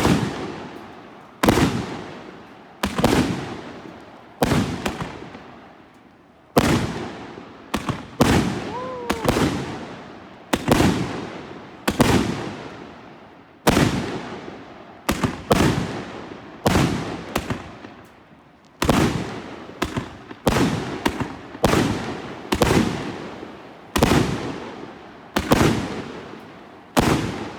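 A 112-shot mixed-caliber fireworks cake firing 30, 38 and 50 mm shells. There is a steady run of sharp bangs about one every second and a half, each followed by a long fading echo.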